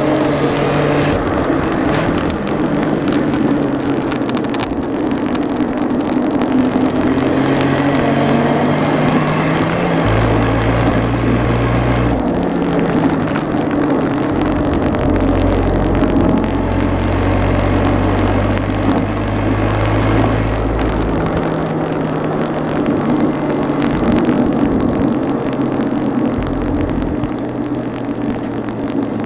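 Car engine running and misfiring.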